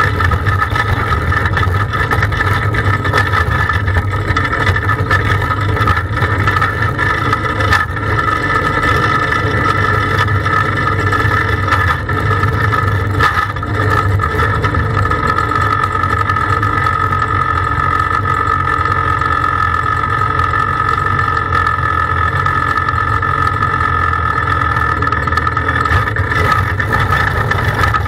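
Caged dirt-track racing kart engines idling steadily while the karts sit lined up, heard from onboard one of them.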